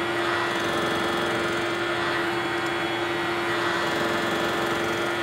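Vertical milling machine running steadily, its end mill cutting a finger groove into the rim of an aluminum cap: a steady hum with constant cutting noise.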